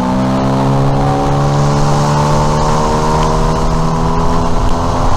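Outboard boat motor running under way, its pitch climbing gently over the first few seconds and then holding steady.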